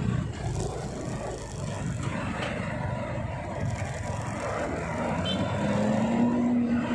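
Road traffic noise on a city street, with a vehicle engine note coming up and rising slowly in pitch over the last second or so.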